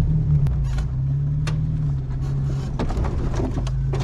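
1993 Jeep Wrangler YJ's engine running low and steady as the Jeep crawls along a rough forest trail, with scattered sharp clicks and knocks over it.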